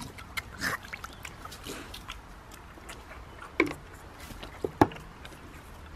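Piglets drinking and slurping from a freshly filled metal water dish: scattered short wet sounds, with two louder sharp ones about three and a half and five seconds in.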